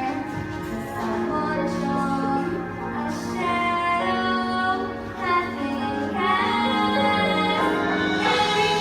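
A young girl's voice singing a musical-theatre song over backing music, holding long notes.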